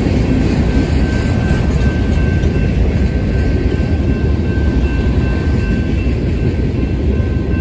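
Freight train of enclosed autorack cars rolling past at a grade crossing: a loud, steady rumble of steel wheels on rail, with faint on-and-off high tones above it.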